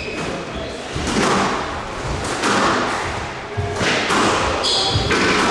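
Squash rally: the ball cracks off rackets and the court walls roughly every second and a half, with a brief squeak of court shoes on the floor near the end.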